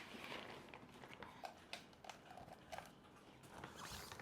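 Faint handling noise: light scattered knocks and rustling as a sewing machine is settled into an insulated fabric bag.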